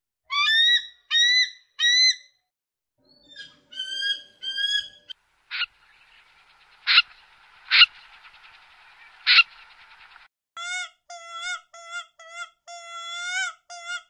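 A string of bird calls from different birds in turn. First comes a bald eagle's high, chirping calls in two runs of three. A buzzy stretch with four sharp clicks follows, and then a run of about eight short rising calls near the end.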